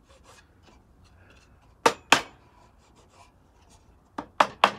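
Wooden shelf boards knocking against a wooden box frame as they are handled and set into place: two sharp knocks close together about two seconds in, then three quick knocks near the end.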